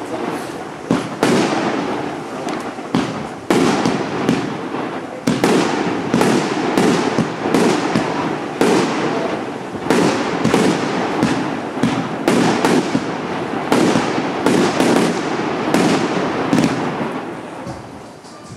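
TXB149 Triplex fireworks battery (cake) firing shot after shot, about one to two bangs a second. Each shell bursts in the air, with a hissing crackle between the reports. The firing slackens near the end.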